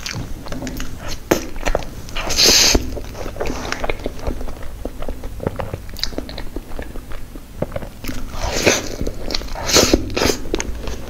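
Close-miked mouth sounds of eating soft, cream-filled crepe cake: wet chewing and lip smacks throughout, with a louder brief squish about two and a half seconds in.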